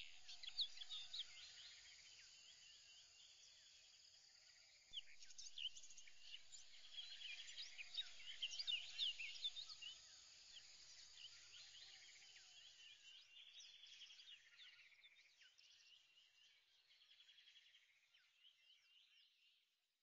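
Faint chorus of high chirps and trills like birdsong, growing a little louder about five seconds in, then fading away near the end.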